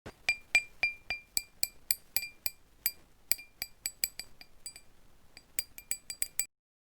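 A small hard household object, glass or glass-like, struck or knocked over and over in light clinks: about two dozen irregular taps, each with a short bright ring at the same pitch. The taps come quickest just before they cut off near the end.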